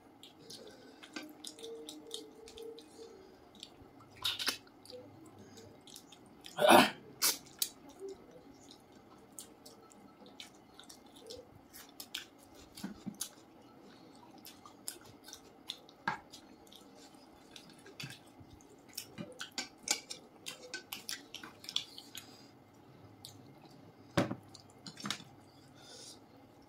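Close-up eating sounds: wet chewing, lip smacks and small clicks as two people eat rice and curry with their fingers. One louder, sudden noise comes about seven seconds in.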